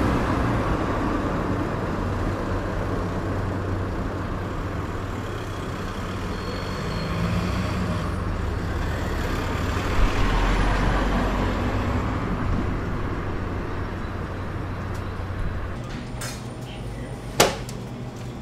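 Steady city street traffic noise, with a vehicle passing about halfway through. Near the end it gives way to a quieter room with a few clicks and one sharp knock.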